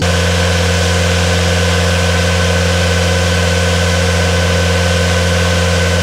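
Engine running steadily at a constant speed at a grain silo loadout: a deep, even hum with a fainter higher whine over it.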